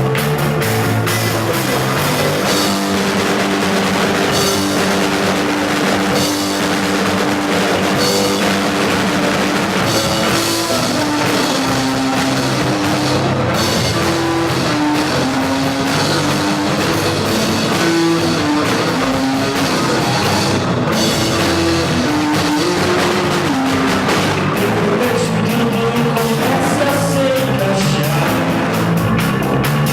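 Live rock band playing, with drum kit and electric guitar.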